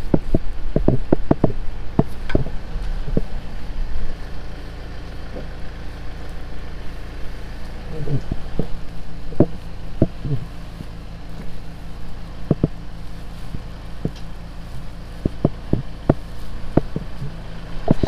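Diesel engine of a farm loader idling steadily, with scattered short knocks and clatters over it.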